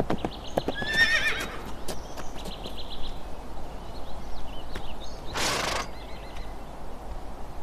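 Horse hooves clopping on forest ground during the first second as the horse pulls up, then a horse whinnying with a wavering pitch about a second in. A short breathy burst follows about five and a half seconds in.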